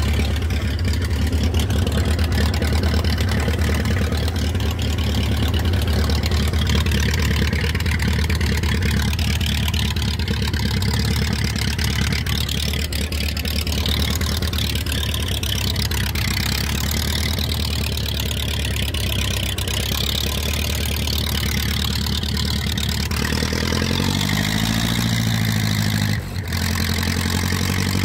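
Grey Ferguson tractor engine running steadily as the tractor is driven. Near the end the engine speed rises and falls again, with a brief dip just after.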